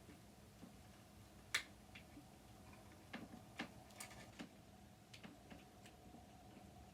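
Irregular small clicks and taps of a screwdriver working at a screw in a sewing machine, the loudest about one and a half seconds in. The screwdriver is slipping in the screw head, which is stripping.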